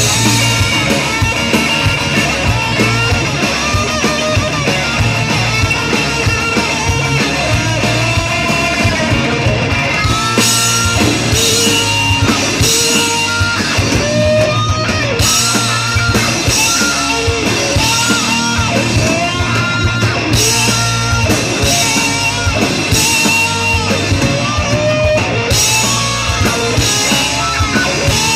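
Live rock band playing: electric guitars and a drum kit with a sung lead vocal. About ten seconds in the cymbals come in harder, in repeated bright crashes.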